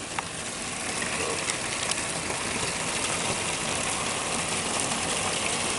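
Heavy rain pouring down: a dense, steady hiss with scattered sharp drips and splatters, growing louder over the first second or so.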